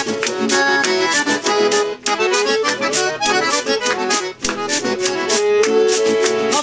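Piano accordion playing the melody of a gaúcho vaneira instrumental break, with an acoustic guitar strummed underneath and a hand shaker keeping a steady beat.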